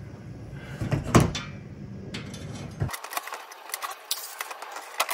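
Light metallic clicks and taps of a bolt being fitted and hand-started through an aluminium skid plate into its mounting bracket, with a sharper knock about a second in.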